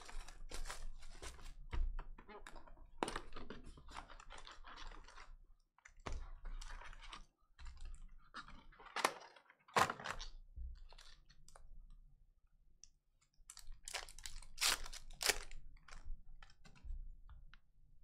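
Cellophane shrink-wrap crinkling and tearing off a trading card box, then foil card packs rustling and being torn open, with cards handled. The sound comes as irregular crackles and rustles with short pauses.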